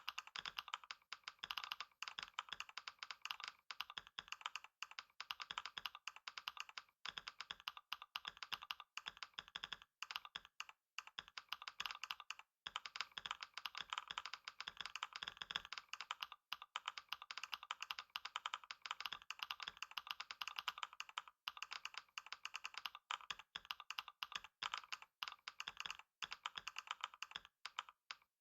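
Computer keyboard being typed on rapidly and without letup in a speed-typing test: a dense, fast stream of key clicks broken by a few short pauses.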